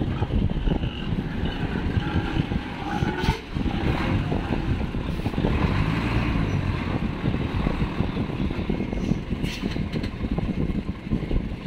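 Diesel engine of a large livestock truck running as the truck manoeuvres slowly onto a ferry ramp, with a steady low rumble.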